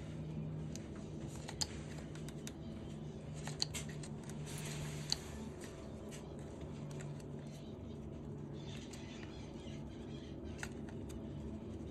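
Faint scattered small clicks and light taps over a low steady hum, with a brief soft hiss about four to five seconds in.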